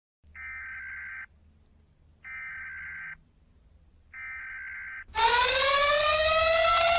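Emergency Alert System-style alarm: three short, harsh buzzing data bursts about a second apart, like an EAS header, then about five seconds in a much louder siren-like wail starts low and slides upward.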